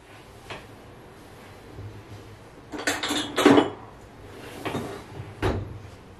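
Kitchen drawer pulled open, ceramic cups clattering and clinking against each other as they are lifted out, loudest about three seconds in, then the drawer pushed shut with a low thump near the end.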